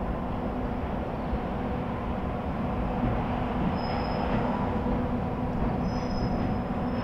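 EF64 electric locomotive hauling a freight train, approaching: a steady low rumble that grows a little louder partway through, with a few brief high thin squeals from about four seconds in.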